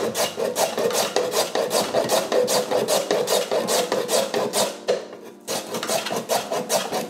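Peeled raw potato being rubbed up and down on a box grater: a quick, rhythmic rasping of several strokes a second, with a short pause about five seconds in.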